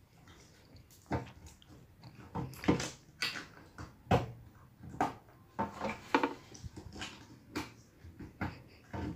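Slime being squeezed and stretched by hand, giving a series of sharp, wet squelching pops and clicks at an irregular pace of about one or two a second.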